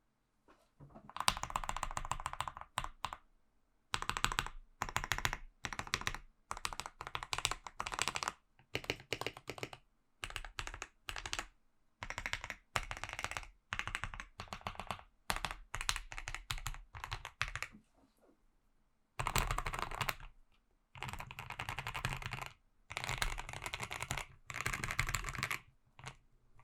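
Modifier keys of a KBDFans KBD67 Lite mechanical keyboard (polycarbonate plate, lubed JWK Dogikon linear switches, PBT keycaps, stock stabilizers) being typed, in rapid runs of keystrokes lasting a second or two with short pauses between. The stock stabilizers are what the reviewer names as the weak spot in its otherwise good sound.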